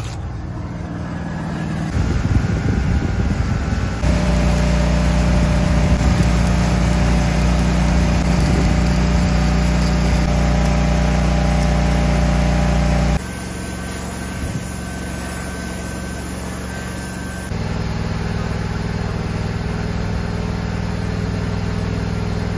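Engine-drive welding machine running steadily while a 7018 stick electrode lays build-up weld passes, with the arc's crackle over the engine. The level jumps at several cuts and is loudest through the middle.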